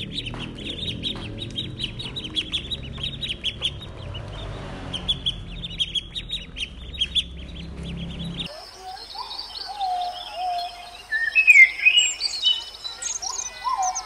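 Mallard ducklings peeping in quick, high chirps, several a second. A little past halfway this stops and other birds sing in sliding, whistled notes.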